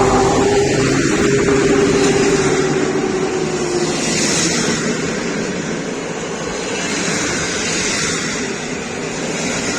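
A train passing at close range, a loud steady rush of wheel and running noise. A faint steady tone fades out in the first few seconds, and the noise slowly eases.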